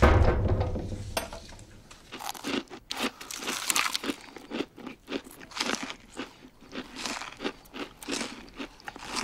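A low thud right at the start, then people biting and chewing crunchy toast, with irregular crisp crunches coming a few times a second.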